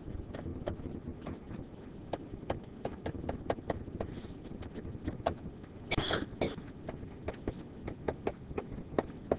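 A digital pen tapping and scraping on a writing screen as words are handwritten: irregular short clicks, several a second, over a low room hum. A louder, longer rustle comes about six seconds in.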